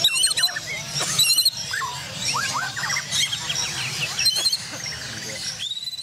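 Several Borneo white-rumped shamas (murai batu) singing at once in a song contest, with fast repeated trills and quick rising and falling whistles overlapping, over a low murmur of the crowd.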